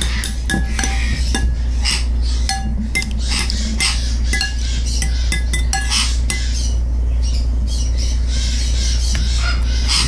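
Metal spoon stirring in a glass bowl of hot water, clinking and scraping against the glass many times, some clinks ringing briefly.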